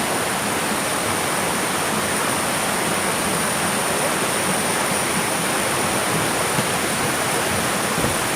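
Fast-flowing forest stream rushing over rocks, a steady even rush of water.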